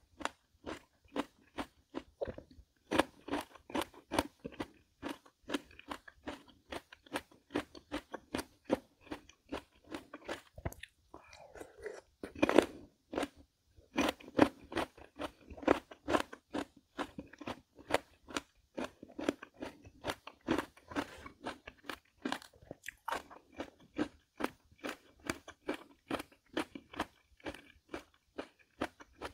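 A person biting and chewing crisp Korean melon (chamoe), a steady run of wet crunches about three a second. The loudest crunch comes about twelve seconds in.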